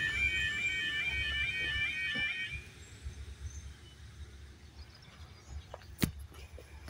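Level crossing's electronic warbling alarm sounding, then cutting off about two and a half seconds in as the crossing sequence ends after the train has passed. A single sharp knock follows near the end.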